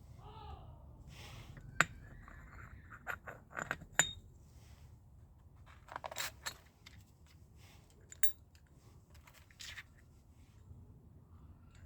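Irregular metallic clinks, knocks and scrapes, with two sharper knocks about two and four seconds in, over a faint low hum.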